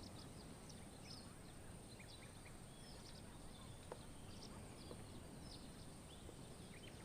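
Faint outdoor ambience with scattered short bird chirps over a steady high hiss.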